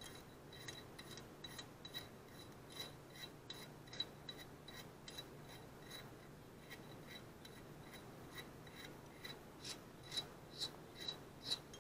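Faint small metallic clicks, fairly regular at about two or three a second, as a rocker arm nut is spun onto its stud by hand on a Honda GXV160 engine's cylinder head.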